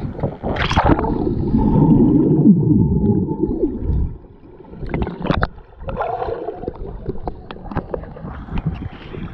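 A cannonball splash into a swimming pool under a second in, then a few seconds of muffled underwater rushing and gurgling of bubbles as the camera is submerged. After that, water slaps and laps against the camera at the surface.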